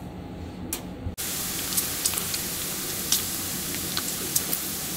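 Bacon frying in a Finex 12-inch cast iron skillet: a steady sizzle with scattered sharp pops and crackles of spitting fat, starting abruptly about a second in after quiet room tone and a single light click.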